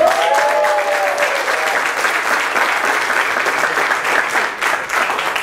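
Congregation applauding steadily, with a held tone over the first second and a half.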